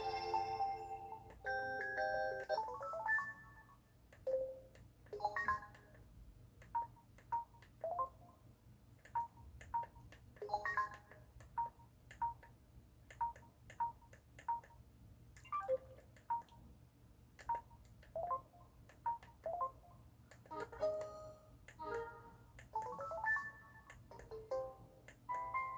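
Samsung SMT-W6370 internet home phone playing its electronic effect sounds: a string of short beeps and chimes at changing pitches, with quick rising runs near the start and near the end and a stretch of evenly spaced single beeps in the middle.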